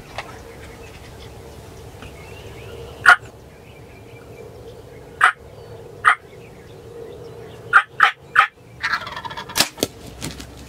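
Wild turkey gobbler gobbling repeatedly in short, loud calls, with a quick run of three and then a longer burst of calling near the end.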